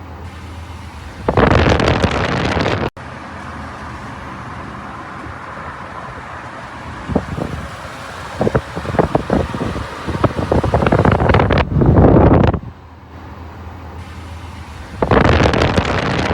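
Wind buffeting the microphone, a low rumble that surges unevenly and cuts in and out abruptly.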